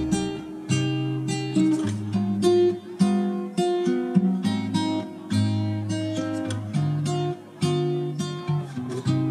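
Background music played on acoustic guitar, a run of plucked notes over held bass notes.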